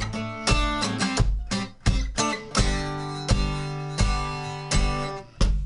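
Acoustic guitar strummed in a steady rhythm, a stroke about every two-thirds of a second with each chord ringing on between strokes; no singing.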